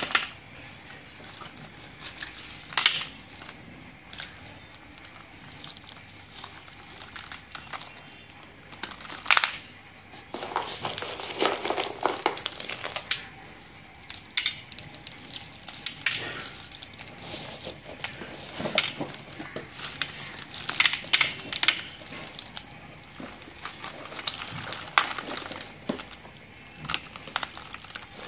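A hand stirring and scooping a pile of slate pencil sticks in a plastic bag: the sticks click and clatter against each other while the plastic crinkles. The clicks and rustles come irregularly and grow busier from about ten seconds in.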